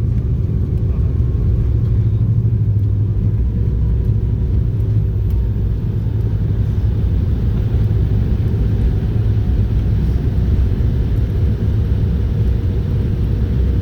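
Steady low rumble inside the cabin of a Boeing 737-800 rolling on the ground after landing, with no sharp changes.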